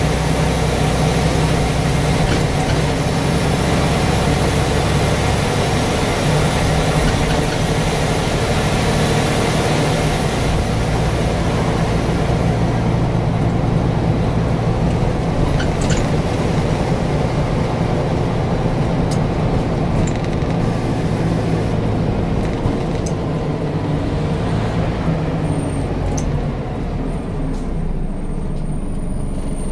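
Scania N94UD double-decker bus's five-cylinder diesel engine running, heard from inside the passenger saloon as a steady low drone over body and road noise, with a few sharp clicks or rattles in the second half.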